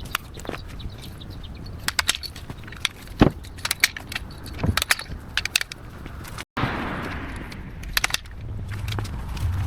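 Branches being snipped and snapped during tree trimming: a run of sharp, irregular snaps and clicks. About two thirds of the way through, after a sudden cut, a steadily rising rush of noise with a low hum.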